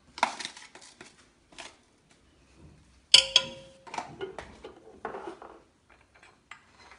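Metal kitchenware clinking and clattering against a large aluminium cooking pot. About three seconds in there is one loud clang that rings briefly, followed by lighter scrapes and taps.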